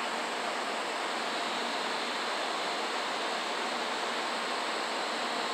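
Steady, even rushing noise with no distinct events from an N700 series Shinkansen train set standing at the platform with its equipment running, before it pulls away.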